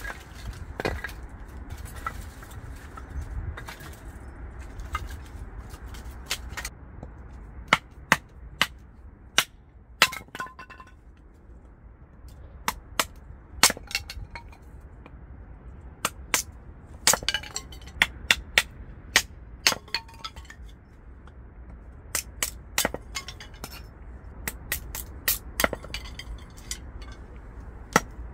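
Firewood being split into kindling with a small hatchet on a log chopping block: irregular sharp chops and cracks of splitting wood, some in quick pairs, with split sticks clattering down. The first several seconds hold only softer knocks of firewood being handled before the chopping starts.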